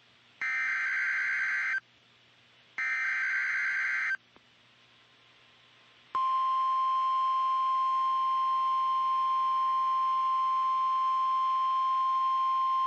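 NOAA Weather Radio Emergency Alert System signal announcing a severe thunderstorm warning: two bursts of SAME digital header data, each about a second and a half long, then about six seconds in the steady 1050 Hz warning alarm tone begins and holds.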